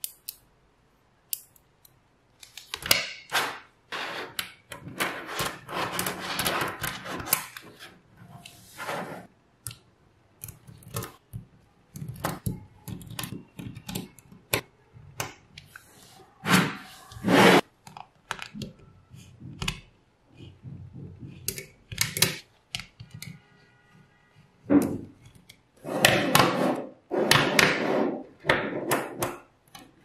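Small magnetic balls clicking and clattering as they are handled and snapped together, in irregular bursts of rapid clicks with short pauses between.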